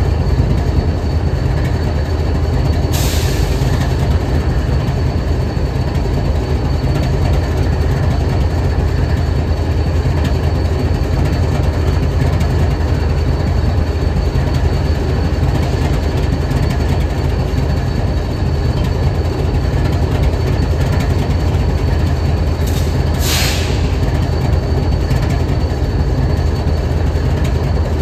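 Diesel-electric freight locomotive idling, a steady low engine rumble. Two brief hisses break in, about three seconds in and again near the end.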